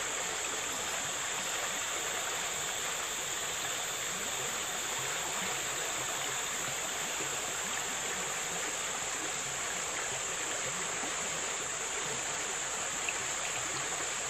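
Steady rushing of a flowing river, with a constant high-pitched drone above it.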